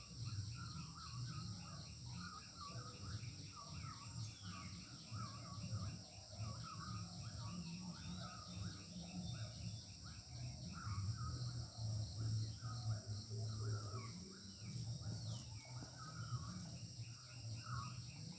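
Crickets and other insects chirring: a steady high drone with fast, evenly repeated chirps, and short calls coming again and again. A low rumble runs underneath.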